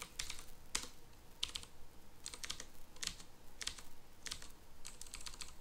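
Computer keyboard typing: short clusters of keystrokes coming irregularly every half second to a second, with brief pauses between.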